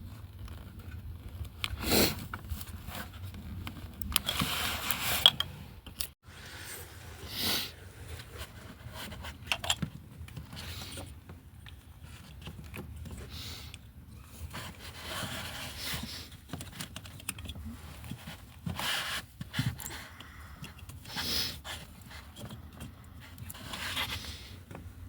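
Intermittent scrapes, rustles and clicks of hand tools and parts being handled, with sharper knocks about two and five seconds in.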